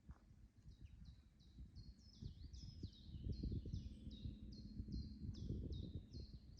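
A songbird singing a rapid repeated series of short, high notes, about two or three a second, over a low rumble of background noise.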